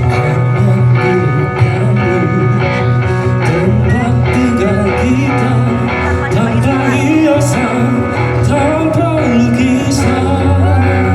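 Guitar-backed song music with a steady bass and a wavering melody line over it: the instrumental lead-in before the vocals start.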